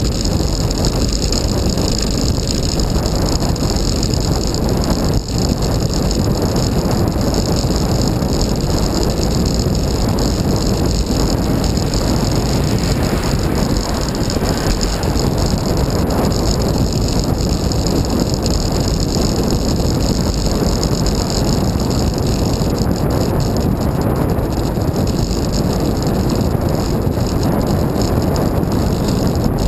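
Steady rush of wind and road noise from a moving bicycle, picked up by a camera mounted on the bike, with wind buffeting the microphone.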